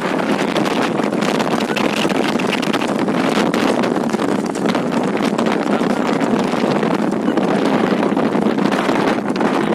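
Steady wind rush buffeting the microphone, mixed with the running noise of a moving vehicle.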